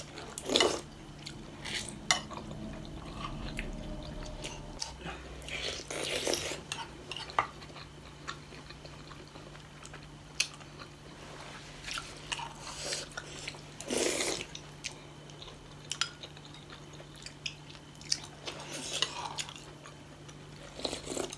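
Close-up eating sounds of two people eating momo dumplings in soupy achar sauce with spoons: chewing, lip smacks and a few louder slurps, with the odd spoon click against a plate. A steady low hum runs underneath.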